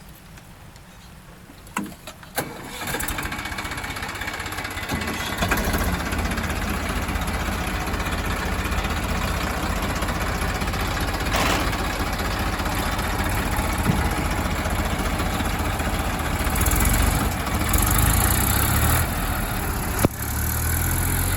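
A diesel engine starts about two seconds in and then runs steadily, getting louder for a few seconds near the end.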